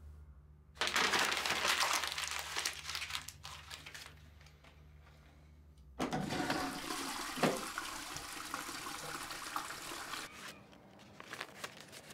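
Toilet cistern flushed by its push button: a rush of water into the bowl starts sharply about six seconds in and runs for about four seconds before dying away. An earlier rush of water starts about a second in and fades over some three seconds.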